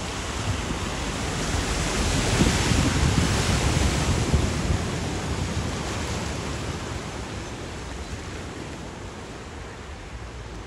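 A Toyota people carrier driving through a flooded ford, its wheels and bow wave throwing up a steady rush of splashing water. The rush is loudest two to five seconds in, then slowly eases as the car pushes through into shallower water.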